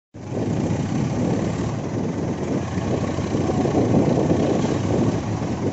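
Diesel farm tractor engine running loud and steady as the tractor drives along a dirt track. The sound cuts in suddenly right at the start.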